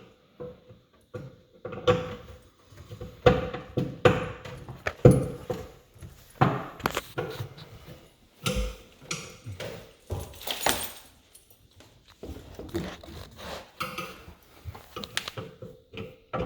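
Irregular metallic clanks, clicks and knocks of hand tools on the garbage disposal's mounting hardware as someone works at breaking its bolts free, with a faint steady hum underneath.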